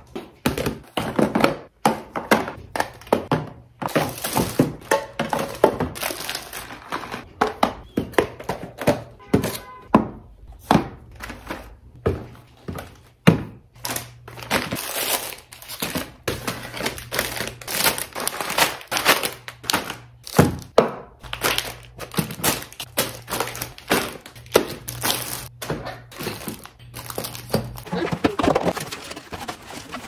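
Plastic food containers, organiser trays and packaged groceries being handled and set down on a wooden table: a quick, continuous run of clacks and thunks mixed with crinkling plastic packaging.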